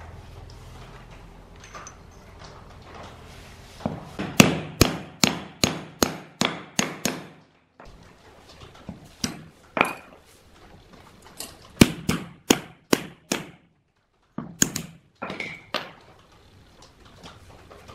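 Sharp metal hammer blows seating new ball bearings onto the steel shaft of a vegetable slicer's drum. The blows come in quick runs: about ten at roughly three a second, then shorter groups of a few.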